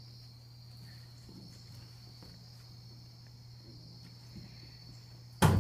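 A pause filled by a low steady hum and a faint steady high-pitched whine. Near the end, a sudden loud burp begins as he tries to burp the word "hornets".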